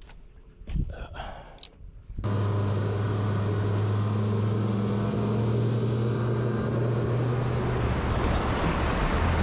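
Twin 225 hp outboard motors running a fishing boat at speed: a steady engine drone over the rush of the wake and wind, starting suddenly about two seconds in. The engine note shifts near the end.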